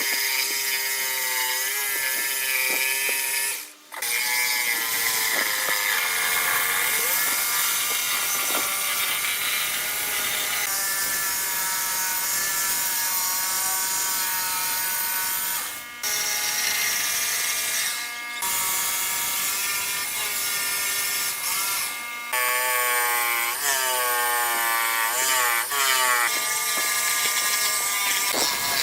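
Electric power tools working wood: a motor whining steadily, its pitch sagging and recovering as the tool takes load, in several shots with abrupt cuts between them.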